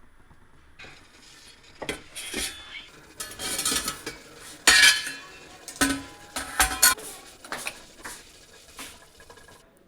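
Kitchen utensils clinking and scraping against dishes in a run of sharp knocks with short ringing, beginning about a second in; the loudest clink comes a little before the middle.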